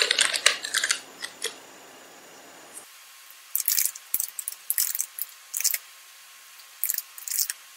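Computer keyboard typing: a few key clicks at the start, then several short bursts of quick clicking through the second half.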